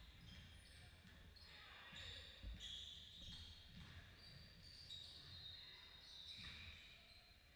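Faint basketball game sounds in a gym: a ball bouncing on the court, short high-pitched squeaks scattered throughout, and distant voices.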